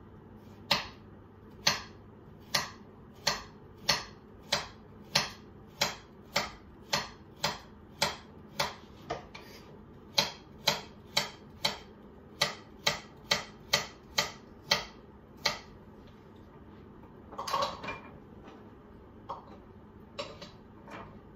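Kitchen knife chopping carrots on a wooden chopping board: about two dozen even chops, a little under two a second, with a short pause midway. The chopping stops and a brief clatter follows near the end.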